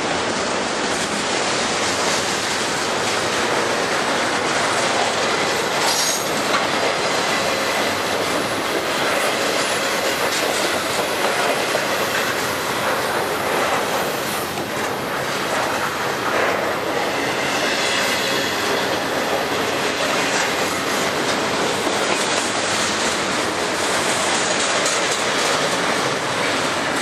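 Double-stack intermodal container cars of a long freight train rolling past: a steady noise of steel wheels on rail, with scattered knocks.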